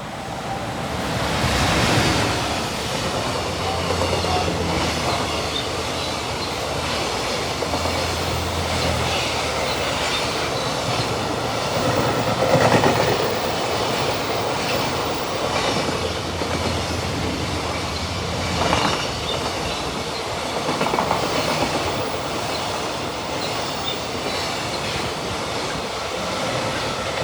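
JR Freight EF210 electric locomotive hauling a freight train past, its wagons' wheels clacking steadily over the rail joints. The sound builds over the first two seconds as the locomotive arrives, then holds loud and steady as the wagons roll by.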